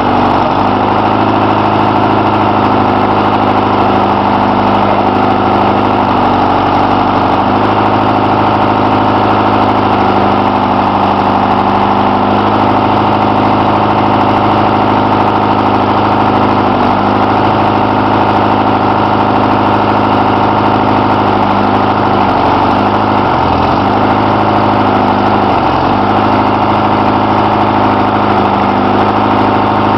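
Diesel engine of an articulated forestry machine with a hydraulic knuckle-boom grapple, running steadily while the boom moves rocks; its pitch dips briefly a few times in the second half as the hydraulics load it.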